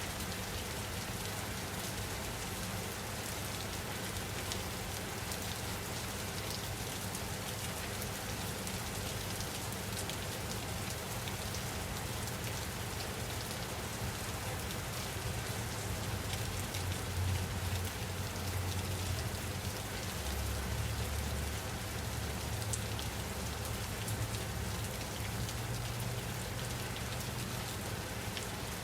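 Steady rain falling: a dense, even hiss with many small drop ticks on a surface. A low rumble swells briefly a little past halfway.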